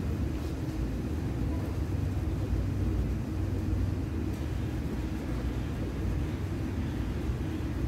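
A steady low mechanical rumble with a faint hum, even throughout.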